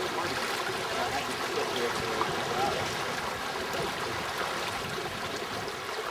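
Lake water sloshing and lapping against the side of a canoe under sail on choppy water, a steady splashing.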